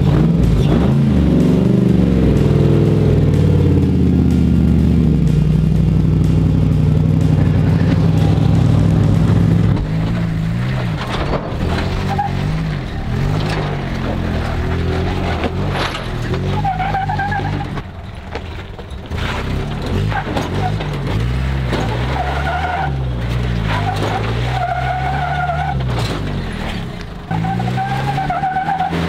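Toyota Hilux pickup engine crawling over slickrock: steady for about the first ten seconds, then revving up and down repeatedly as it climbs, with several short high squeals from the tyres scrubbing on the rock in the second half.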